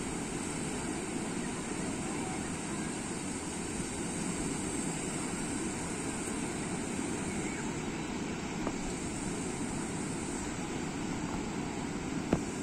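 Steady rushing of small waves breaking on a sandy beach, with a single sharp click near the end.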